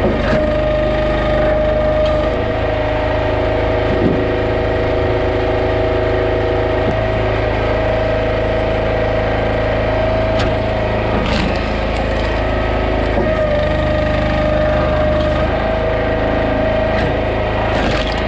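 A small gasoline engine, most likely a hydraulic log splitter's, runs at a steady governed speed, dipping briefly a couple of times as it takes load.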